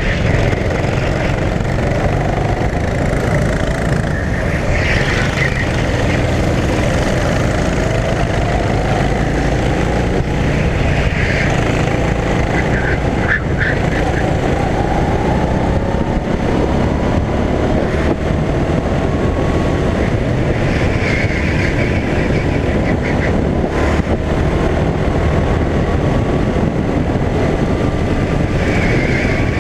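Rental go-kart engine heard onboard at racing speed, its pitch climbing slowly and dropping back as the driver works the throttle, with brief higher-pitched squeals several times.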